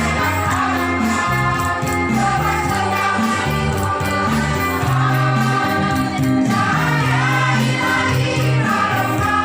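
A choir singing together, with the song running on without a break.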